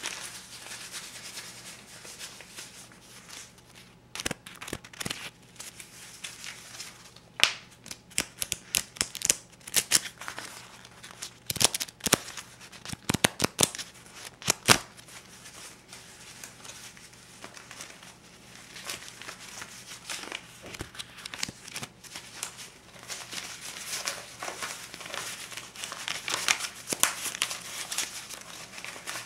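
Paper banknotes (a stack of US $50 and $20 bills) being handled: crisp crinkling and rustling, with a run of sharp snaps and flicks between about four and fifteen seconds in, and denser crinkling near the end.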